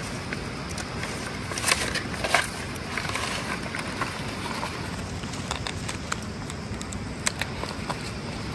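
Sal leaves rustling and crackling as they are handled, a few sharp crackles standing out over steady background noise.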